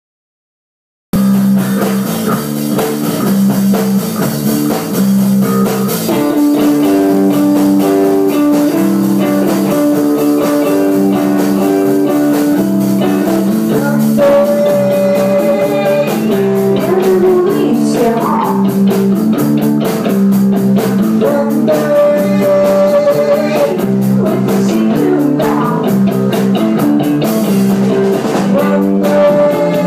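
Live rock band playing: a woman singing lead over electric guitar, bass guitar and drum kit. The music starts about a second in.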